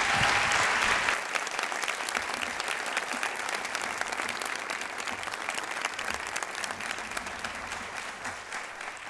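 A large audience applauding, loudest at the start and slowly dying away.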